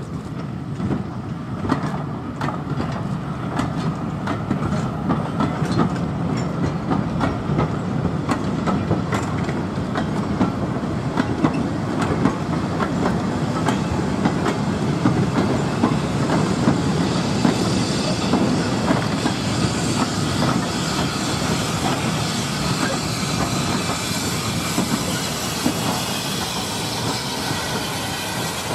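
Goods wagons and a brake van rolling slowly past, wheels clicking and clanking over rail joints and points, pushed from the rear by a Caledonian Railway 439-class 0-4-4 tank steam engine. A steam hiss grows through the second half as the engine draws near.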